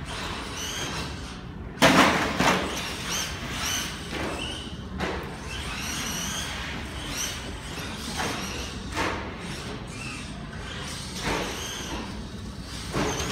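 Losi 22 SCT electric short course truck lapping the track, its motor whine rising and falling in pitch again and again as it speeds up and slows. There is one loud thud about two seconds in, followed by a few lighter knocks.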